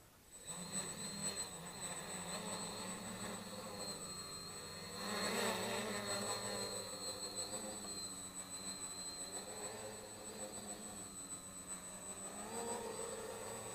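Homemade 3D-printed quadcopter's motors and propellers spinning up about half a second in and buzzing steadily as it lifts off and hovers, the hum wavering with the throttle. It grows louder about five seconds in and swells again near the end.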